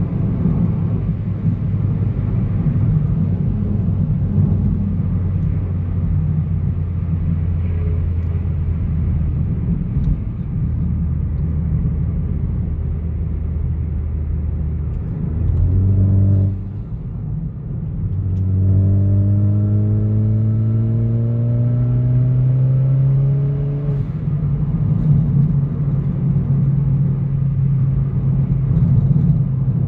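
Hyundai Elantra GT Sport's 1.6-litre turbocharged four-cylinder, breathing through an aFe axle-back exhaust, cruising with a steady drone. About halfway through there is a brief rise and a dip at a gear change, then several seconds of acceleration with the pitch rising. The pitch steps down at the next shift and the engine settles into a steady drone again.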